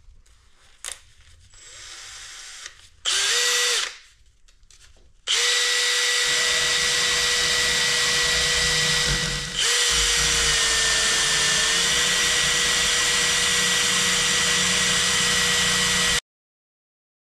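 Cordless drill spinning a steel threaded rod against a file clamped in a vise, a steady motor whine over the rasp of metal being filed to round a dome on the rod's end. A short run comes about three seconds in, then a long steady run whose pitch dips for a couple of seconds midway before it cuts off suddenly near the end.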